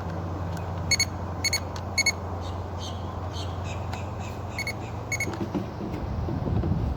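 Power probe circuit tester beeping as its tip touches the fuses one by one: three short beeps about half a second apart, then two more a few seconds later. Each beep signals power at that fuse, and the fuses test good. A steady low hum runs underneath.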